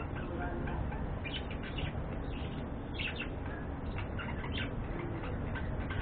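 Pet budgerigars chirping and chattering in rapid, short, irregular calls, with a steady low rumble underneath.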